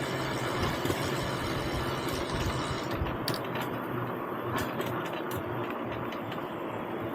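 Wind rushing over the microphone and tyre noise of a bicycle being ridden, with a few faint clicks in the second half.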